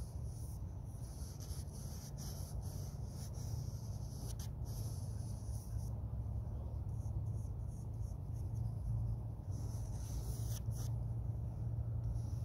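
Long-handled paintbrush stroking and dabbing oil paint onto a painting panel, short scratchy strokes at an irregular pace, over a steady low rumble.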